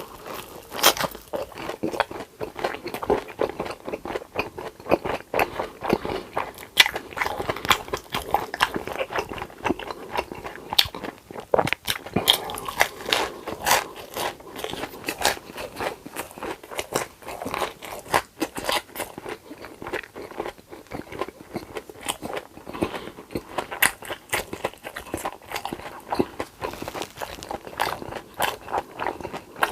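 Close-miked eating: continuous biting and chewing, with many sharp crunching clicks one after another.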